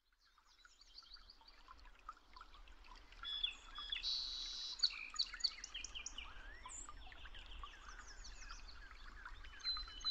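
A dense chorus of many birds chirping and calling over one another, fading in from silence over the first second, with a loud buzzy trill about four seconds in.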